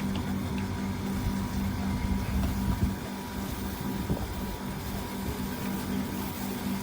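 A motor running steadily, a constant even hum.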